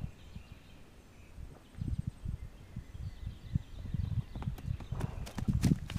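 Hooves of a Missouri Fox Trotter horse walking on pasture close to the microphone: irregular dull thuds that start about two seconds in and grow louder, with a few sharper clicks near the end.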